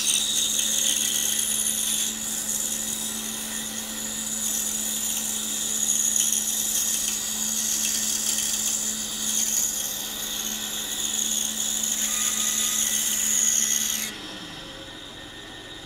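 Pegas bandsaw/scrollsaw running with a fine number 9 blade, cutting steadily through a small block of buckeye with a high hiss and a low hum. The cutting sound stops abruptly about 14 seconds in, leaving the quieter background.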